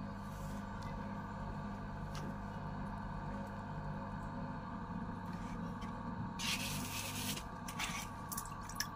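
Wet clay rubbing under a potter's fingers as a tall pot turns on the potter's wheel, over a steady low hum. About six seconds in, a louder scraping rush lasts about a second, followed by a couple of short clicks.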